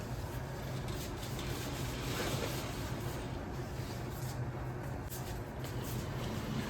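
Steady low hum with a faint even background hiss: indoor room tone with no distinct event.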